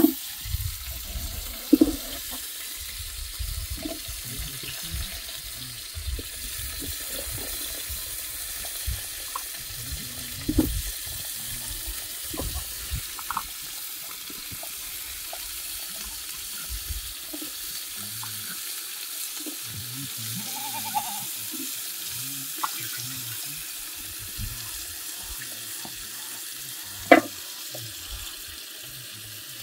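Water running steadily, with a few sharp knocks now and then, the loudest near the end.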